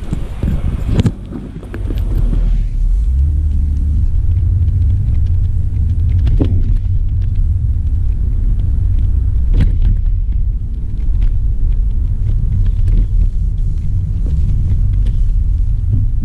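Inside the cabin of a 2006 Toyota Avalon being driven: a steady low engine and road rumble that swells about two and a half seconds in, with a couple of short knocks.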